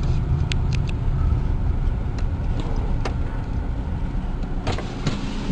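A road vehicle moving along, with a steady low rumble of engine and road noise and a few light ticks.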